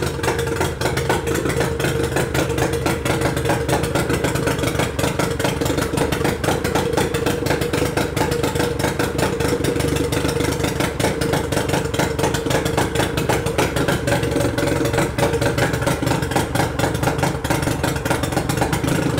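Parsun 25 two-stroke outboard engine running steadily with its gearcase removed and cooling water fed in from a hose. Run this way it no longer overheats, which most likely puts the earlier overheating down to a weak water pump in the gearcase.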